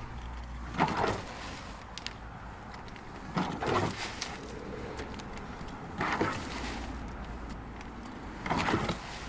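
A shovel scooping dirt and tipping it into a wooden box four times, about every two and a half seconds, each a short scrape and rush of soil.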